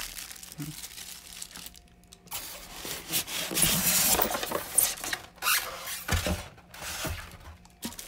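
Plastic packaging crinkling and rustling as fan parts are handled in a cardboard box, with a few sharp knocks; busiest in the middle.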